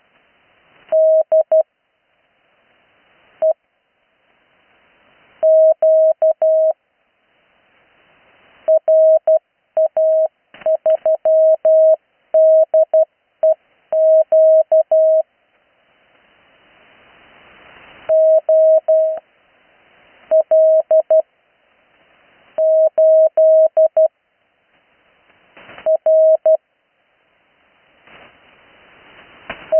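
Morse code (CW) received off the 80 m amateur band: a single steady tone keyed in dots and dashes, sent in short groups at slow-practice speed that spell out call signs. Receiver hiss swells up in the pauses between the groups.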